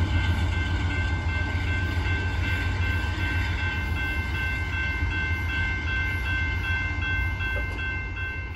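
Diesel locomotives at the tail of a Union Pacific coal train rumble away down the track, slowly fading. Over them a grade-crossing signal bell rings steadily.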